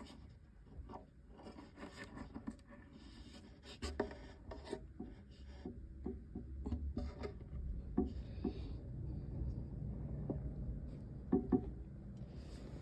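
Rustling, scraping and small knocks of a hand moving soil and bark inside a cockroach terrarium, with a few sharper clicks about four seconds in and again near the end.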